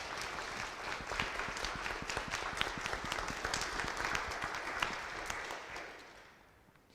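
A congregation applauding: many hands clapping together, which fades out over the last couple of seconds.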